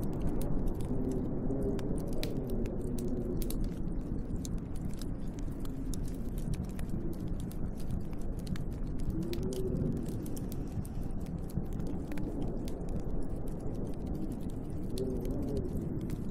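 Wood fire crackling with a steady run of small pops, over a low wind rumble that howls in slow rising and falling swells a few times.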